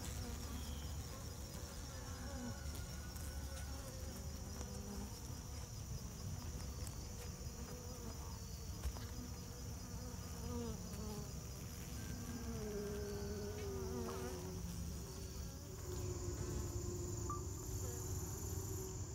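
Honeybees buzzing over the open top bars of a hive, the buzz of individual bees wavering and shifting in pitch, over a steady high-pitched insect trill.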